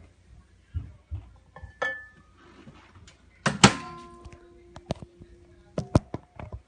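Knocks and clunks from a microwave oven being handled, the loudest about three and a half seconds in and followed by a brief ringing tone; a short high beep-like tone comes near two seconds in.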